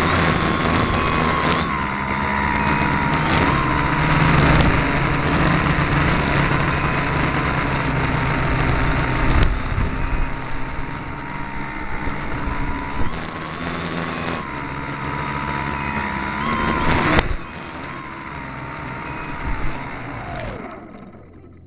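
Tricopter's electric motors and unbalanced propellers whining steadily, picked up by the on-board camera together with rushing air, a few sharp knocks and short high beeps now and then. Near the end the whine falls in pitch and dies away as the craft settles in the grass.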